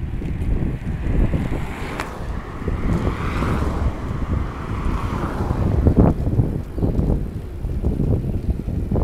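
Wind buffeting the microphone of a handlebar-mounted camera on a moving bicycle, a steady low rumble, with a single sharp tick about two seconds in and a hiss that swells and fades about three to five seconds in.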